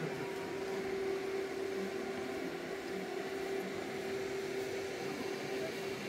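Steady hum holding one constant tone over a faint hiss.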